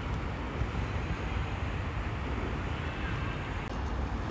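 Steady outdoor noise dominated by wind rumbling on a smartphone microphone.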